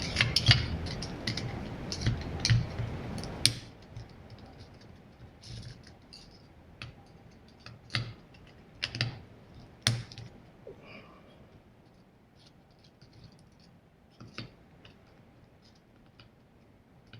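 Small hand tools and screws clicking and tapping on the metal parts of a model nitro engine as its screws are taken out, in irregular single clicks. For the first three and a half seconds a steady humming rattle runs under the clicks, then stops suddenly.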